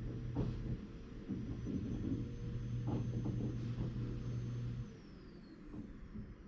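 Vacuum cleaner running in the next room, muffled, with a steady low hum and whine and a few soft knocks; about five seconds in it is switched off and the motor's whine falls away as it spins down.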